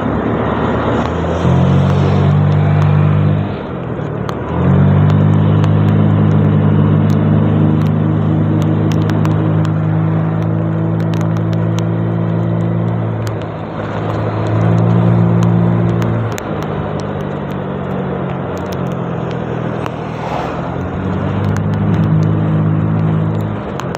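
Honda Vario 125 scooter's single-cylinder engine running under throttle while riding. Its drone comes on for long stretches, about two, five, fifteen and twenty-one seconds in, and drops back in between, over a steady rush of wind.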